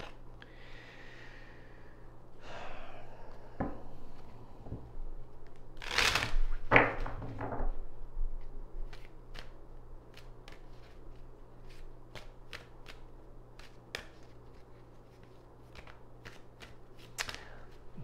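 Hand-shuffling a deck of tarot cards: soft rustling, a louder flurry of shuffling partway through, then a run of short crisp card clicks and snaps as the cards are worked through the hands.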